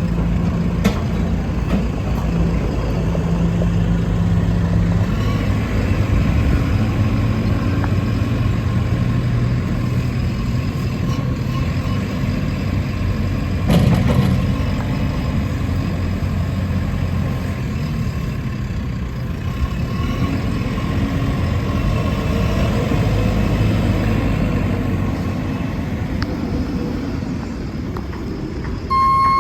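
JCB 3CX backhoe loader's diesel engine running, its engine speed shifting at times, with one brief knock about halfway through. A reversing alarm starts beeping at the very end.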